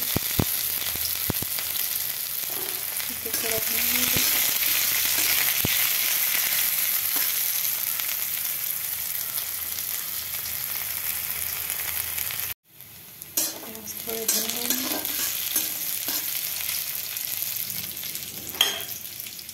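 Sliced onions frying in hot ghee in a steel wok: a steady sizzle, with now and then a click of the stirring spatula against the pan. The sizzle cuts out for a moment about two-thirds through, then carries on.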